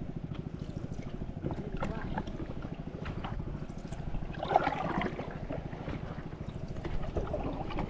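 Wooden canoe paddle dipping and pulling through river water, with splashing and dripping from the blade, over a steady low rumble.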